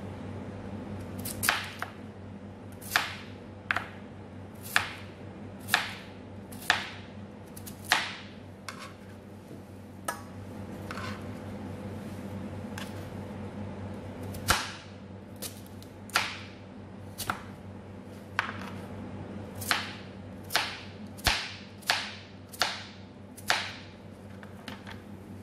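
Kitchen knife chopping a sweet potato on a plastic cutting board: sharp knocks of the blade on the board about once a second, pausing for several seconds midway. A steady low hum runs underneath.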